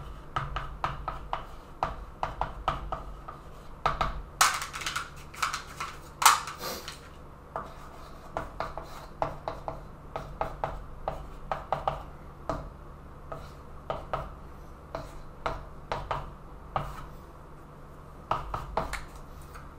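Chalk writing on a chalkboard: a quick run of taps and short strokes as figures are written, with a couple of longer scratchy strokes about four and six seconds in.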